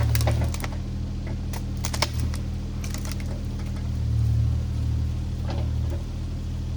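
Compact diesel construction machine running steadily under work, with scattered sharp clanks and knocks; the sharpest comes about two seconds in.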